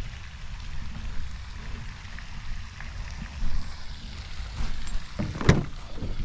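Wind buffeting the microphone, giving a rough low rumble, with a single sharp knock about five and a half seconds in.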